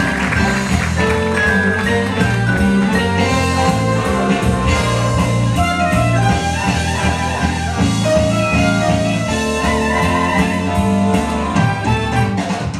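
Loud stage-show dance music with a strong bass line, played through a theatre's sound system for a chorus-line number.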